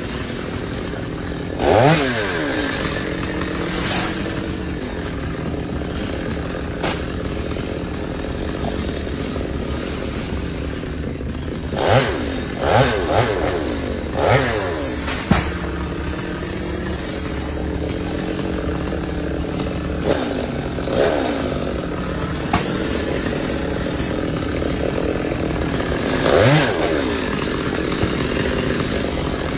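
Chainsaw running steadily, with short revs of the engine several times: near the start, in a quick cluster around the middle, and again toward the end.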